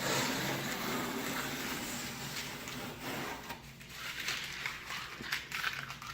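A steady hiss of background noise, then from about three seconds in a scatter of light clicks, knocks and rustles as parts of the intake and snorkel are handled and fitted by hand.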